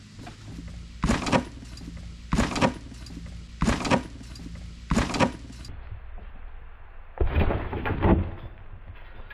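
A child jumping on a small netted trampoline: four evenly spaced landings, about one every 1.3 seconds, each with a creak and rattle of the trampoline. About two-thirds of the way in comes a quick flurry of several landings close together.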